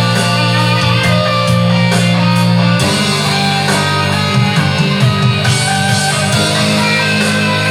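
Hard rock music with electric guitar over a held low bass line and no singing.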